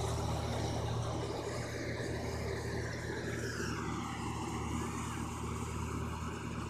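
Rice combine harvester running steadily: a low engine hum under a broad mechanical whir, with a slow dip in pitch in the upper sound about three to four seconds in.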